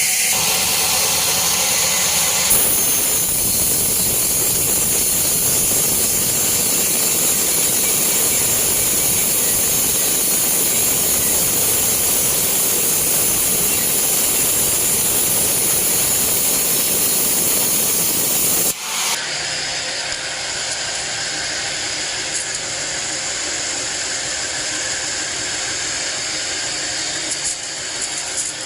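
Sawmill band saw running through a teak log, a loud steady rushing noise that shifts slightly about two and a half seconds in. It cuts off abruptly about two-thirds of the way through, giving way to a quieter steady machine noise.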